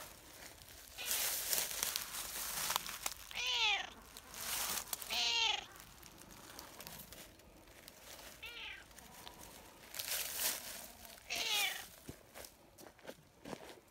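A tortoiseshell cat meowing four times in short calls, with stretches of rustling in between.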